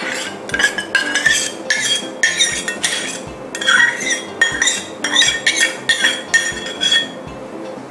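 Metal spoon scraping and clinking against a small stainless-steel bowl, about three ringing strokes a second, as thick oyster sauce is scraped out into a mixing bowl. The strokes stop about seven seconds in.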